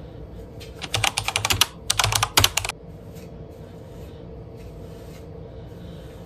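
A wide-tooth comb raking through hair as it is combed out, in two bursts of quick scratchy clicks about a second and two seconds in, over a faint steady hum.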